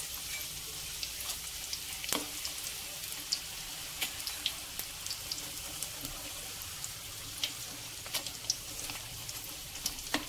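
Wonton parcels deep-frying in hot oil in an aluminium wok over medium heat: a steady sizzle with scattered crackles and pops. A metal spatula knocks against the pan a couple of times as the pieces are turned.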